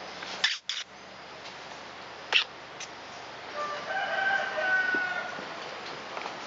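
A few sharp clicks near the start and a louder one about two and a half seconds in. Then a drawn-out bird call with several steady pitches lasts about two seconds.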